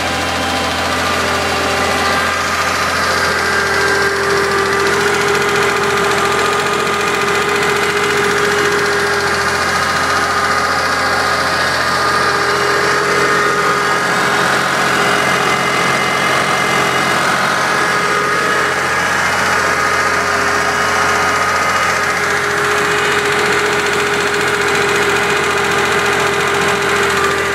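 Porsche 911 SC air-cooled flat-six engine running steadily, with a knock that the owner takes for rod knock.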